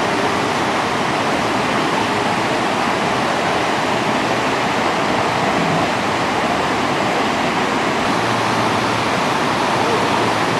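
Waterfall plunging into its pool: a loud, steady rush of falling and crashing water.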